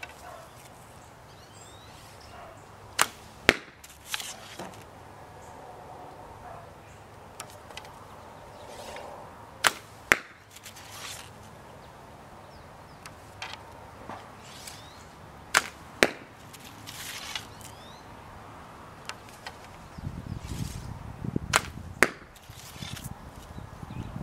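A 40-pound crepe myrtle selfbow shot four times. Each shot is a sharp snap of the string on release, followed about half a second later by the smack of the arrow striking the target.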